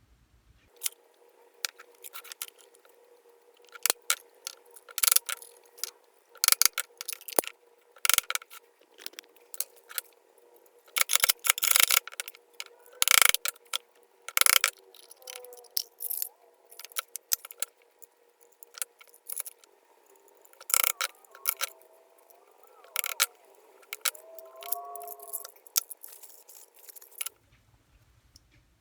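Irregular metallic clinks, taps and rattles of small metal parts and hand tools being handled during bench work, over a faint steady hum. The sounds start about a second in and stop shortly before the end.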